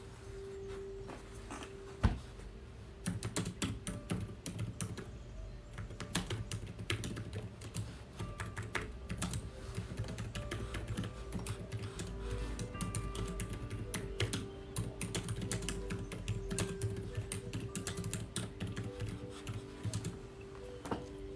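Typing on a keyboard: a dense run of quick clicks that starts about three seconds in and stops near the end, over soft background music. A single sharp knock comes about two seconds in.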